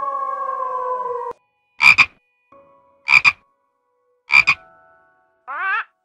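A wolf howl, several held notes sounding together and sliding slightly down, cuts off about a second in. Then come three short, loud double calls about 1.3 seconds apart, and just before the end a quick wavering call.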